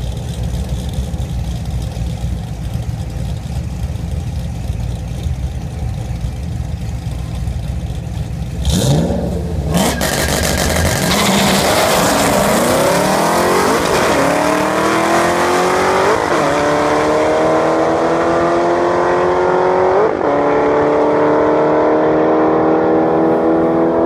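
Two drag-racing cars idling at the start line, then launching hard about nine seconds in with a sharp crack. Their engines rev up in pitch as they accelerate away down the strip, dropping back and climbing again at three gear changes.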